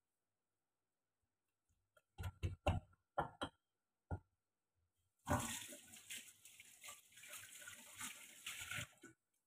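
A few sharp clattering knocks, then a kitchen tap running water into the sink for about four seconds before it is shut off abruptly.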